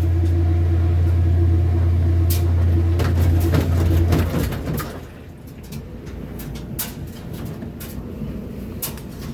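Kenmore washing machine motor running with a steady low hum, then winding down and stopping about four seconds in. After that there is a quieter rumble with scattered clicks and knocks.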